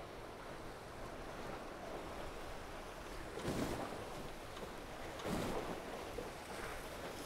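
Tornado racing catamaran sailing: a steady rush of water and wind, with two louder water surges about three and a half and five seconds in.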